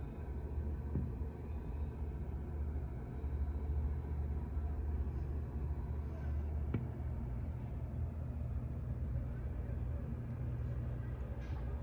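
Steady low background rumble with a single sharp click about seven seconds in.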